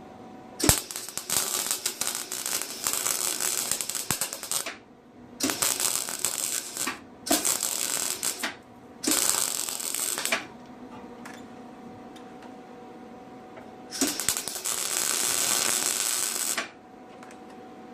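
Electric arc welder laying short weld beads on steel: five bursts of steady crackling sizzle, each one to four seconds long, the first opening with a sharp click as the arc strikes.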